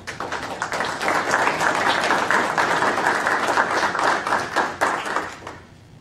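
Audience applauding, the clapping swelling about a second in, holding, then dying away about five and a half seconds in.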